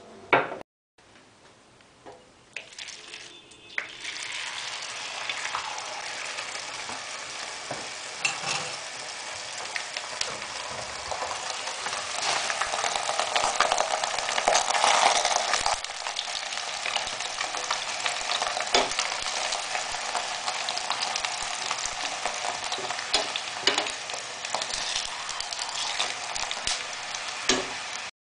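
Layered flour-and-water pancake dough (Mongolian dalan davhar gambir) frying in hot oil in a stainless steel pan: a steady sizzle with crackling, starting a few seconds in and loudest midway. Occasional sharp clicks of a metal spoon against the pan come through as oil is spooned over the dough.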